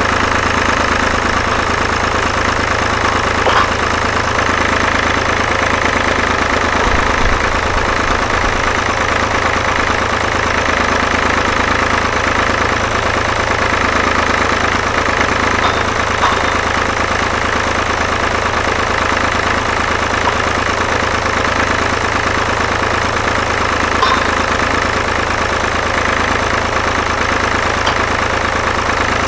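David Brown tractor engine running steadily while it drives the hydraulics of a trailer-mounted log-loader crane, with a few faint knocks.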